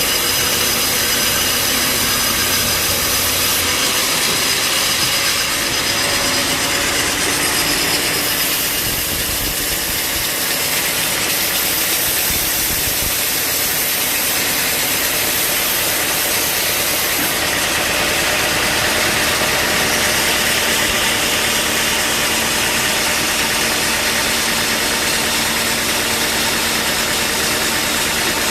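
Band sawmill running: a loud, steady machine din with several steady hums and whines, whose mix shifts a few times.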